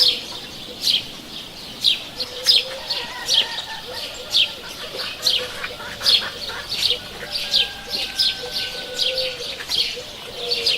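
Small birds chirping in short, sharp notes, about one to two a second, with a low dove-like cooing repeating underneath from about two seconds in: a morning village bird chorus.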